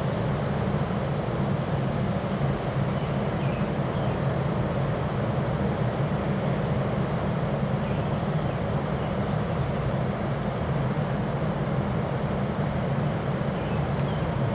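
Strong wind blowing with a steady low rumbling noise that holds at one level throughout.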